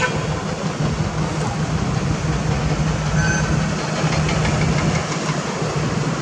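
Heavy truck's diesel engine running under way with a steady low drone, mixed with road noise.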